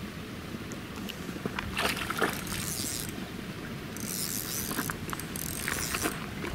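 Spinning reel and fishing line in use on a cast and retrieve: short hissing bursts with a few ticks, about two seconds in, again around four seconds in, and near the end.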